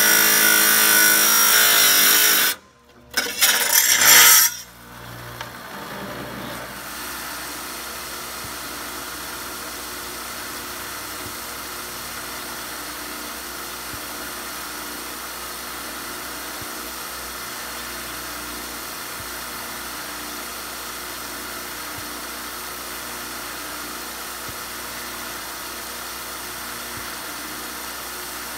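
Chicago Electric wet tile saw cutting through a slab of rock: a loud, steady grinding that breaks off about two and a half seconds in, followed by a short loud burst of grinding. The saw then keeps running quieter and steady, without load.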